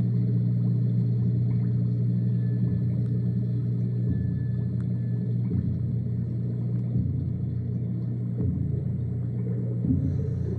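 A low, steady rumbling hum with a slow regular pulse about every second and a half, from the animated film's soundtrack.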